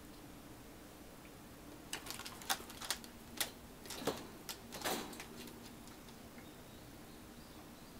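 An American Shorthair kitten climbing a sisal scratching post inside a wire cage: a run of sharp clicks and scrapes from its claws gripping the post and catching on the cage, from about two seconds in until about five and a half seconds in.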